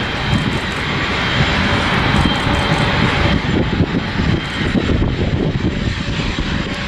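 Jet airliner's engines running at high power as it climbs away after takeoff: a steady roar over a low rumble, easing off slightly near the end as the aircraft draws away.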